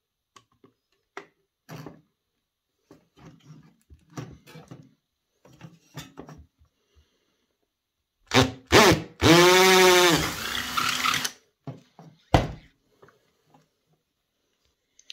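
Cordless drill boring a hole through the plastic back casing of a toy cassette player. After several seconds of light handling clicks, the drill gives two short blips, then runs for about two seconds with its pitch rising and falling, then gives one more short blip.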